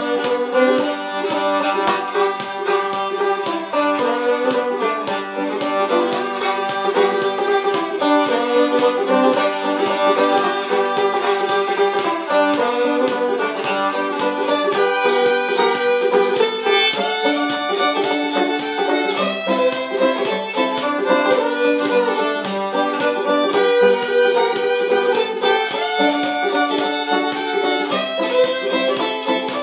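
Old-time fiddle and open-back banjo playing a tune together: the bowed fiddle carries the melody over the banjo's steady plucked rhythm.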